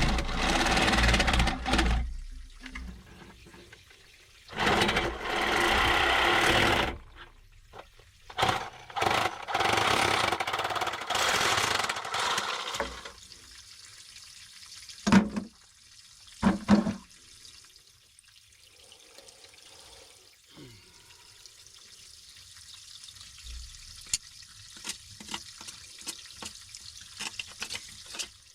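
Water from an artesian well pipe rushing and splashing in several loud stretches, then two dull knocks about halfway through, then a quieter steady trickle.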